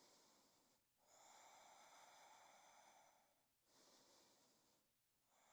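Very faint, slow breathing through the nose, alternating in and out as long, soft breaths with short pauses between them.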